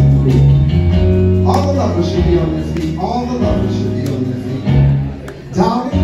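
Live music: a man singing into a microphone over guitar and bass accompaniment, amplified through the theatre's sound system.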